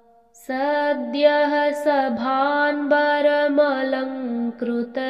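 A single voice chanting a Sanskrit devotional verse in a slow, melodic recitation, starting about half a second in after a brief pause.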